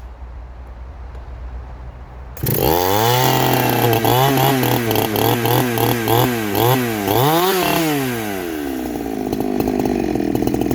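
Farmertec G372XT two-stroke chainsaw running low at first, then revving up sharply about two and a half seconds in. Its engine speed surges up and down several times before it settles to steadier running near the end. The owner blames the carby and the throttle interlock, which lets it rev one minute and locks it the next.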